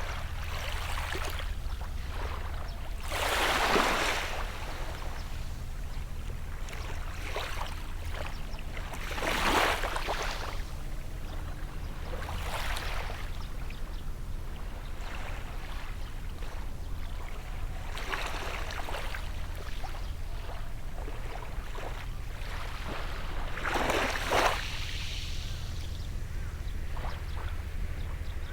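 Small sea waves washing onto the beach, a surge of wash every few seconds, the biggest at about 4, 10 and 24 seconds in, over a steady low rumble.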